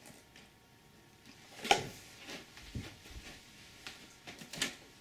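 Shrink-wrapped cardboard model kit box being handled and moved over a wooden table: a few light knocks and rustles, the sharpest about a second and a half in, with a couple of dull thumps just after.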